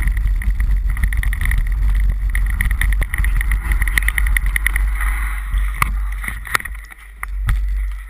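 Mountain bike riding down a rough dirt trail, heard from a camera mounted on the bike: heavy wind rumble on the microphone under a steady high buzz, with sharp rattles and knocks from the bike over the rough ground. The noise drops off in the last couple of seconds as the bike slows.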